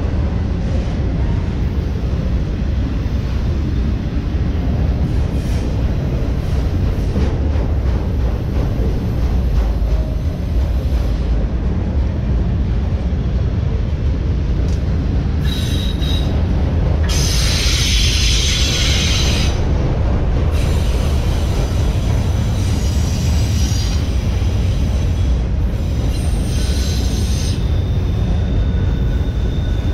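Autorack freight cars rolling past close by: a steady heavy rumble of steel wheels on rail. Wheels squeal in high-pitched spells from about halfway through, strongest for a few seconds just past the middle, with shorter squeals after.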